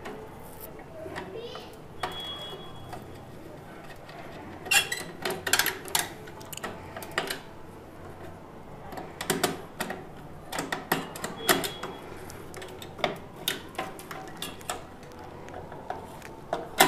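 Scattered light metallic clicks, taps and rattles from a screwdriver working the CPU cooler's screws and hands moving cables inside an old steel desktop PC case, as the fan and heatsink are unfastened. The clicks come in irregular clusters, busiest in the middle and toward the end.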